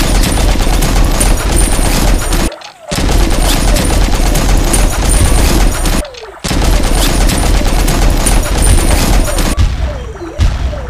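Machine-gun fire sound effect in three long bursts of rapid shots, each about three seconds, with brief pauses between them.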